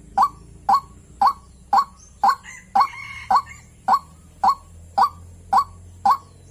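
Female white-breasted waterhen (ruak-ruak) call used as a lure for males: one short note repeated evenly, about twice a second.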